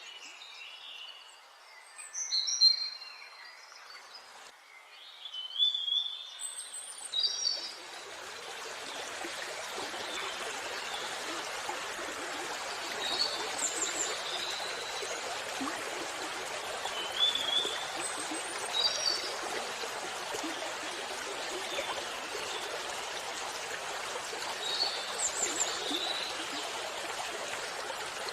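A waterfall's steady rush of water, with birds chirping in short calls over it. The birds are loudest in the first few seconds, and the water sound grows fuller and steadier about a quarter of the way in.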